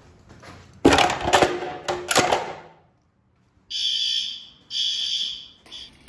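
Fire alarm horns sounding. A loud, harsh horn blast lasts about two seconds. After a brief silence come two high, steady horn tones about a second apart.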